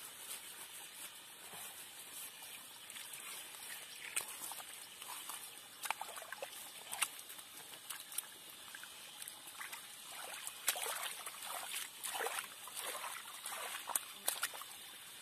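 Bare hands scooping and squelching wet mud in shallow muddy water, with small splashes and trickles, coming and going and busier in the second half.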